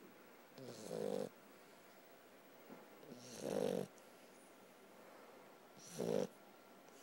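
Puppy snoring in its sleep: three snores about two and a half seconds apart, each swelling and then cutting off sharply.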